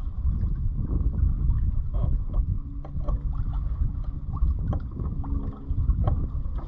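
Wind buffeting the microphone aboard a sailboat under way in gusty wind: a heavy low rumble that swells and eases, with a faint steady hum in the middle and scattered small knocks.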